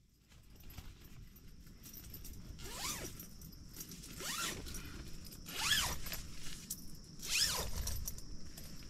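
Tent door zipper being unzipped in four short rasping pulls, about a second and a half apart.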